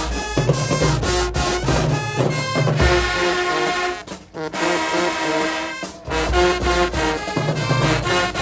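Marching band brass playing loud sustained notes over a low bass line, with a short break about four seconds in.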